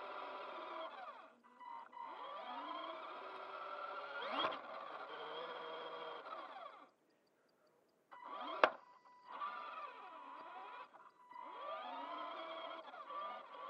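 Small electric motor and gears of a Kyosho Overland Mini-Z RC truck whining, its pitch rising and falling with the throttle and stopping briefly a few times. A sharp knock about two-thirds of the way through is the loudest sound.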